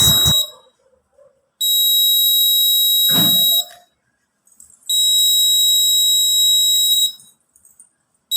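Homemade security alarm's buzzer sounding a steady high-pitched tone, a brief blip and then two long beeps of about two seconds each. A short knock comes about three seconds in.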